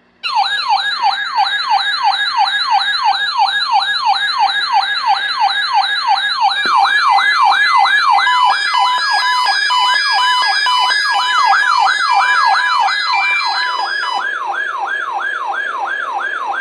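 Weather-radio alert siren: a loud electronic warble sweeping up and down over and over, set off by the weekly test of the NOAA Weather Radio warning alarm. Further beeping alert tones join about seven seconds in and stop about fourteen seconds in, and the siren cuts off near the end.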